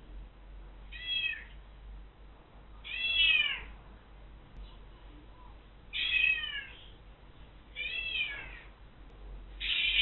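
Ginger domestic cat meowing, five meows a second or two apart, each falling in pitch: calling to be let out for a walk.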